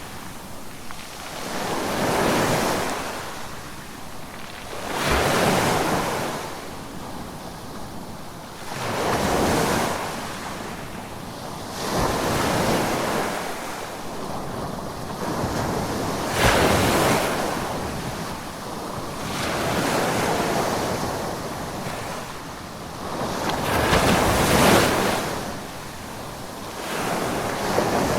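Ocean waves breaking and washing up the shore, each surge swelling and dying away about every three to four seconds.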